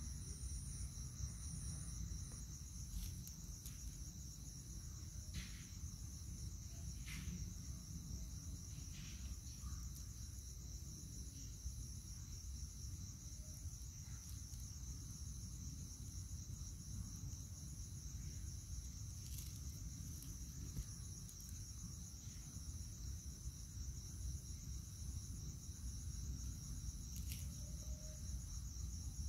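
Crickets and other night insects calling in a steady high trill, with a higher chirp repeating in even pulses over it.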